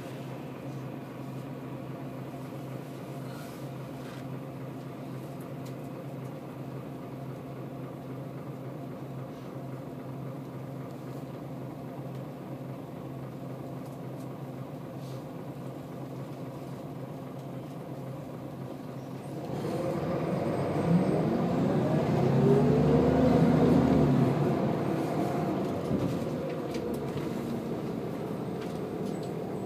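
Scania L94UB bus's diesel engine heard from inside the cabin, idling steadily at first. About two-thirds of the way through it grows louder as the bus pulls away, its pitch rising under load through the ZF automatic gearbox. After a few seconds the pitch drops back at a gear change, and the engine carries on running at a steadier level.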